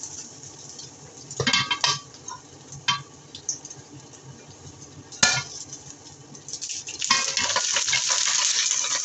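Wooden spatulas knocking and scraping against a stainless steel wok of frying shredded potato, then a sharp clink about five seconds in as a plate meets the wok. For the last two seconds a loud sizzle of frying, which cuts off suddenly.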